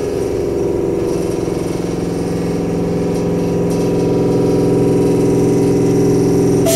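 Steady mechanical hum from a stopped electric train's on-board equipment, several steady tones with a fast pulsing texture. It grows slightly louder about four seconds in.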